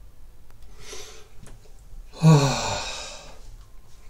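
A man lets out a long, breathy sigh about two seconds in, its pitch falling as it trails off, after a softer exhale about a second in.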